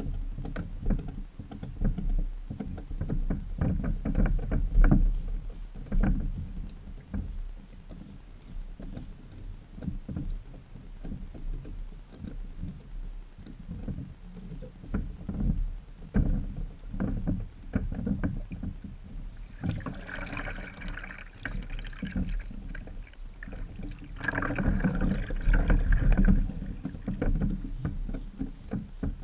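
Knocks and thumps of someone moving about and handling gear on the wooden deck of a small homemade catamaran, with water lapping against the hulls. About two-thirds of the way in come two short spells of louder water splashing.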